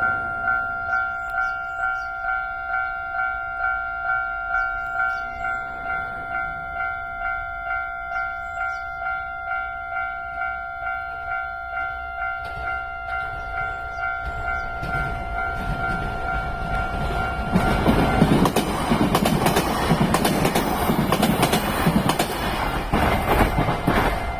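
Japanese railway level-crossing warning bell ringing in a steady two-tone pulse, about two strikes a second. From about 15 s a train's running noise builds, and from about 18 s it is loudest as the train passes over the crossing, largely covering the bell.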